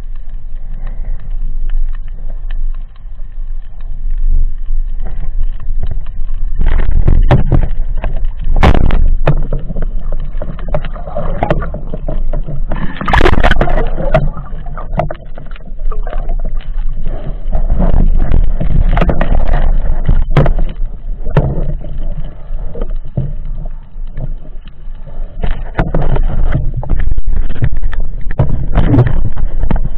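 Muffled underwater water noise as a spearfisher swims with a speargun, heard through a submerged camera. There is a sharp knock about nine seconds in, and a loud splashing rush about thirteen seconds in as the camera comes up just under the surface.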